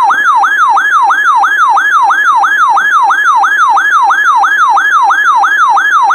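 Electronic warbling siren alert from a Midland weather radio, a tone sweeping up and down about four times a second without a break: the radio's alarm for an incoming severe weather warning.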